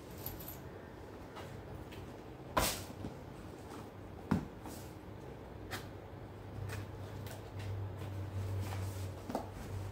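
Cardboard gift boxes being handled: a black box lifted out of a larger box and its flap pulled open, with light taps and scrapes. Two sharp knocks stand out, the first about two and a half seconds in and the second nearly two seconds later. A faint low hum runs underneath.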